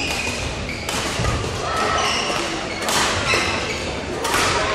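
Badminton play in a sports hall: several sharp racket hits on the shuttlecock, with short squeaks of court shoes on the floor.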